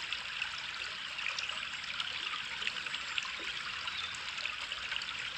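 Small stream of water trickling steadily, with many little splashes.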